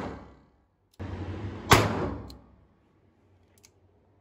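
A .38 Special revolver (Rossi Cyclops) fires a shot about one and a half seconds in, the report ringing off the walls of the indoor range and dying away. Faint clicks follow near the end.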